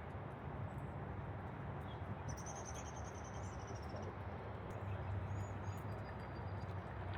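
A small bird sings a quick, high trill of notes about two seconds in, lasting under two seconds, with a couple of faint short chirps a little later. Underneath runs a steady rushing background of rain and fast-flowing river water.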